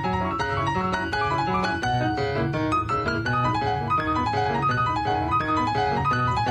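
Piano music with many quick notes over a repeating bass line.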